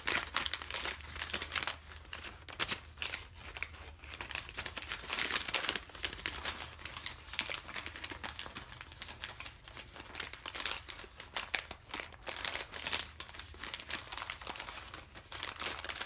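Packaging crinkling and rustling as it is handled, an unbroken run of irregular crackles.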